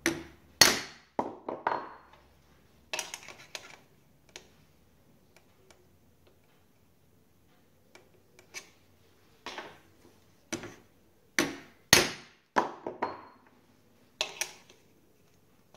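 Small hammer tapping handsaw teeth against an anvil to bend more set into a tooth that has too little. The sharp metallic taps come in irregular clusters of two or three, a few with a brief ring.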